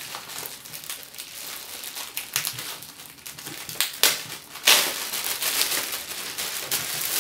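Thin clear plastic bag crinkling and rustling as hands grip and pull it, with a louder burst of crackling about four to five seconds in.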